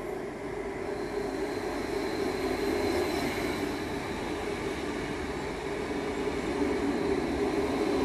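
Stadler FLIRT electric multiple unit (NSB Class 74/75) rolling past along the platform. The steady rumble of its wheels on the rails grows louder over the first couple of seconds, with a thin high whine over it from about a second in.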